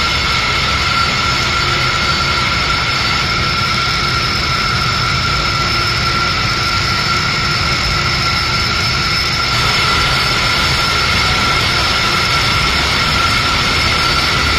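F-15 Eagle's twin jet engines running steadily, a loud jet rush with a high-pitched whine held on several steady tones. It grows slightly louder about two-thirds of the way through.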